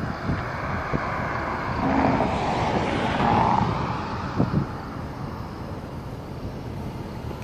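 Outdoor street noise with wind rumbling on the microphone; a passing vehicle swells up and fades away between about two and four seconds in.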